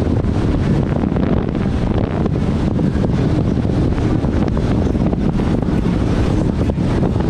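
Steady wind noise buffeting a GoPro's microphone on the deck of a 28-foot Nordic Heat V-hull powerboat running at speed, over a low, even rumble from the boat's engine and hull on the water.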